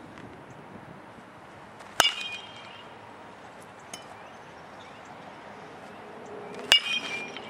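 A baseball struck twice by a metal bat: each hit is a sharp crack with a short ringing ping, about two seconds in and again near the end.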